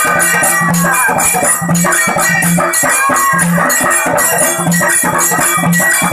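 Dhol drums beaten in a fast, driving rhythm for Dhangari ovi music, with a deeper stroke about once a second under bright metallic jingling.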